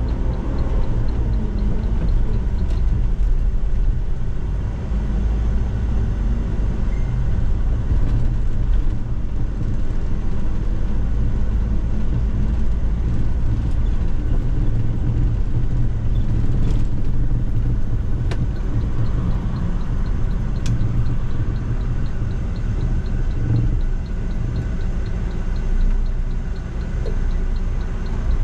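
Inside an MMI Urby LE CNG city bus: a steady low rumble from its Iveco F1C 3.0-litre four-cylinder natural-gas engine and the running gear. A draught rushes over the microphone.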